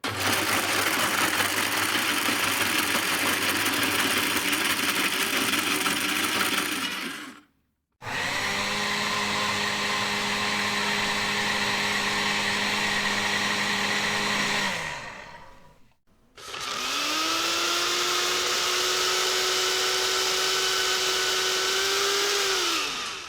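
Electric blender running in three separate bursts of several seconds each, stopping briefly between them. In the last run the motor pitch rises as it spins up, holds steady, then falls as it winds down near the end.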